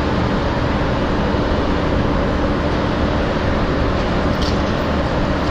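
Steady machinery and ventilation noise on an aircraft carrier's flight deck: a dense rumble with a low steady hum running through it.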